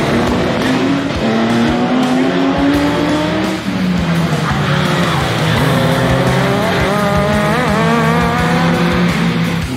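Racing rally car engines at full throttle, pitch climbing through a gear and dropping at a shift about three and a half seconds in; in the second half several engines overlap.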